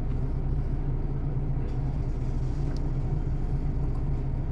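Ford Transit diesel engine idling steadily with a low, even rumble, running on a freshly replaced fuel pump that had caused its no-start.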